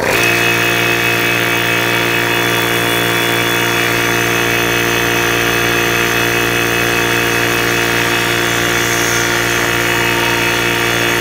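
Tuxing PCP high-pressure air compressor running, a loud, steady motor and pump hum at a constant pitch. It is running without building pressure, because a part that had not been secured had popped out.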